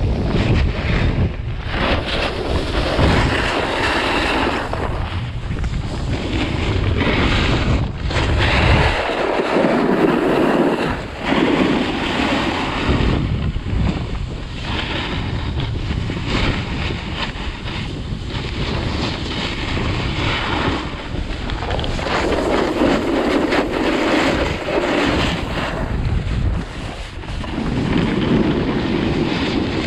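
Wind buffeting the camera microphone and skis hissing and scraping over packed snow during a downhill ski run, the rush swelling and fading in waves every few seconds.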